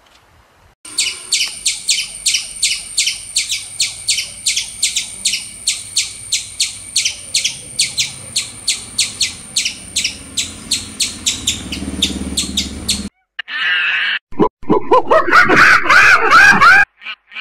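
A striped tree squirrel giving a long run of rapid, high, bird-like chirps, about three to four a second. From about 13 s in, squirrel monkeys give loud squealing chirps that rise and fall in pitch.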